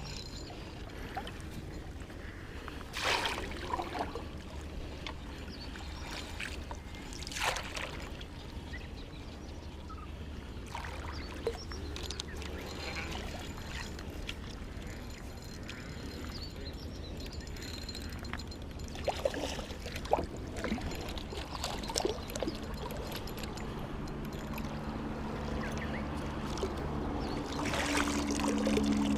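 Water trickling and lapping against a float boat on a river, with a few louder splashes about three and seven seconds in and again near the end.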